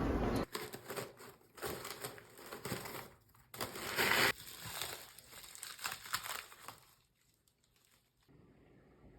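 Irregular crinkling and rustling of material being handled, with a louder burst about four seconds in, stopping about seven seconds in.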